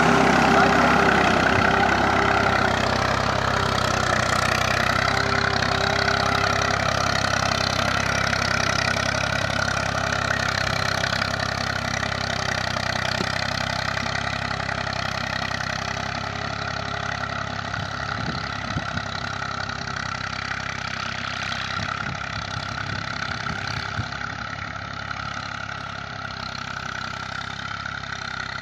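Massey Ferguson 240 tractor's three-cylinder Perkins diesel engine running steadily under load while pulling an 11-tine cultivator through the soil. It fades gradually as the tractor moves away.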